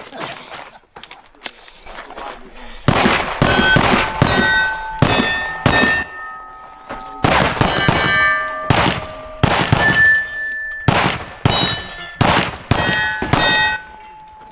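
Rapid pistol shots, each followed by the ringing ding of a steel target plate being hit, in a quick string of about twenty from about three seconds in until near the end, with a short pause about halfway.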